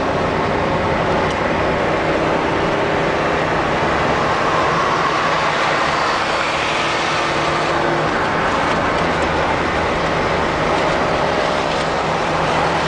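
A car driving along at speed, heard from inside the cabin: steady engine hum with tyre and road noise.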